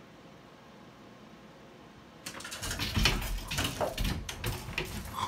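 Clothes and hangers rustling and knocking in a closet as a cat climbs through the hanging garments. It starts about two seconds in and is a busy run of irregular knocks, scrapes and dull thuds.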